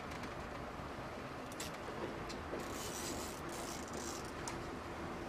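Big-game fishing reel whirring in two short bursts near the middle, with a few brief ticks around them, as line works through the reel under heavy load from a hooked giant trevally.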